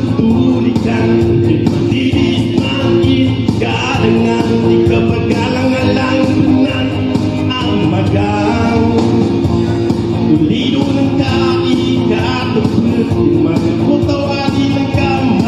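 A man singing live into a microphone over electronic keyboard accompaniment with a steady beat, amplified through a PA loudspeaker.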